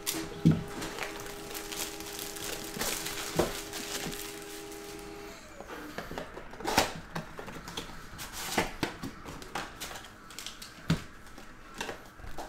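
A cardboard trading-card box being handled and opened by hand, and its sealed packs taken out and set down: scattered taps, rubs and rustles. A steady tone is held through the first five seconds.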